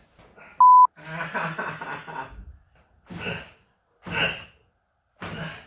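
A short steady 1 kHz censor bleep, the loudest sound, about half a second in. After it come a man's strained vocal sounds and sighs in several short bursts, from the effort of getting a pegboard panel mounted on the wall.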